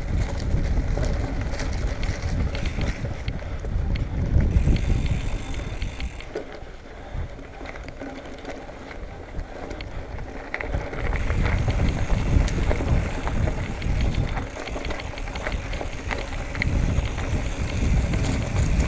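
Hardtail mountain bike (Marin Bobcat Trail 5) ridden over a dirt singletrack: a steady rumble of tyres on the trail and wind on the microphone, with frequent small clicks and rattles from the bike. It eases off for a few seconds in the middle, then picks up again.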